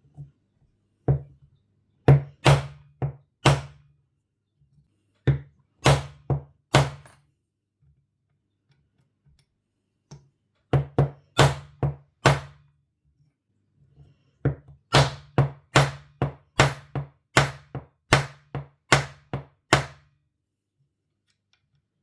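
Rawhide hammer striking a 2 mm aluminium washer in a wooden dapping block to dome it: dull thunks in short bursts of three to five, then a longer steady run of more than a dozen blows at about three a second.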